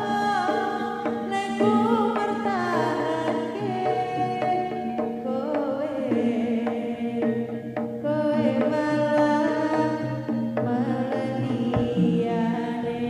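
Live jaranan (kuda lumping) music played through a large speaker system: a wavering melody line over drums and a steady low tone.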